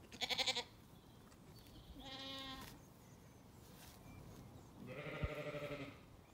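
Zwartbles sheep bleating three times, each a short wavering call, the last the longest.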